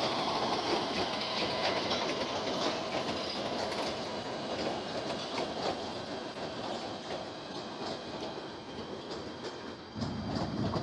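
A train passing on the rails, its wheels clicking over the rail joints, the sound fading steadily as it moves away. A short low rumble comes just before the end.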